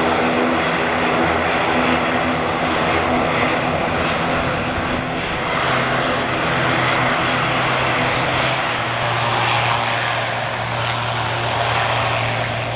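ATR 72 twin-turboprop airliner's engines and propellers running as it taxis along the runway: a steady propeller drone over engine hiss. The drone settles to a lower, steadier hum partway through.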